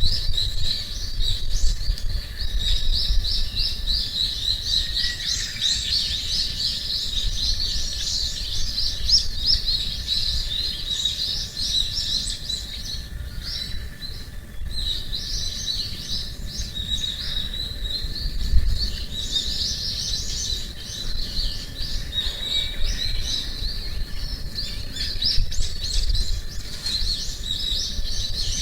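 Small birds chirping in a rapid, almost continuous stream of high notes, with a short lull about halfway through. A low rumble runs underneath.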